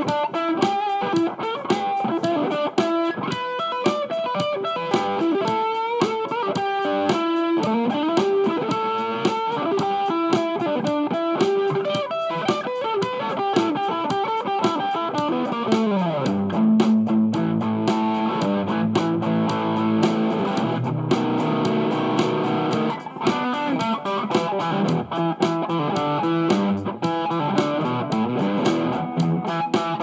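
Solo electric guitar played with a pick: quick single-note melodic runs, a downward slide about halfway through into a few held low notes, then more runs to the end.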